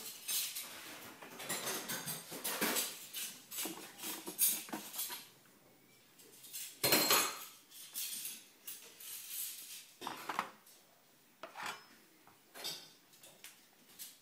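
Hard plastic clattering and knocking as the spent-grounds container of a Bosch automatic coffee machine is pulled out and handled: a run of irregular knocks, the loudest about seven seconds in.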